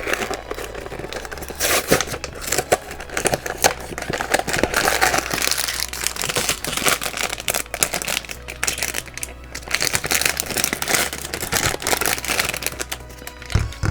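Plastic blind-bag packaging crinkling and rustling in the hands, irregular crackles throughout as the bag is opened and the figure unwrapped.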